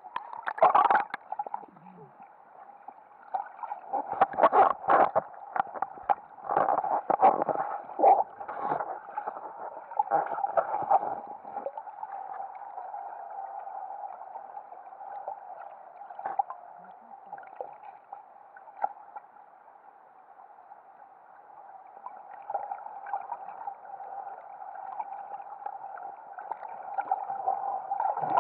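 Splashing and bubbles from snorkelers, heard underwater through a camera's waterproof housing, so everything sounds muffled and boxy. There are irregular clatters and splashes for roughly the first ten seconds, then a steadier muffled wash of water.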